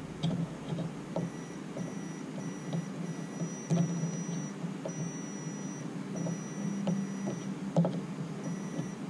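Digital multimeter's continuity beeper sounding in a string of short and longer high beeps, switching on and off as the test probes touch the coil pack's terminals; each beep marks an electrical path between the probed terminals. A steady low hum and light taps of the probes run underneath.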